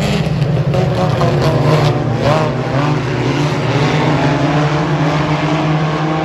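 Several four-cylinder dirt-track race cars running in a pack around the oval, engines at racing speed with their pitch rising and falling, most clearly about two seconds in.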